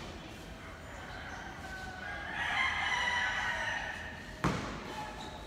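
A drawn-out call of about two seconds, loudest in its middle, then a single sharp basketball bounce on the court floor near the end.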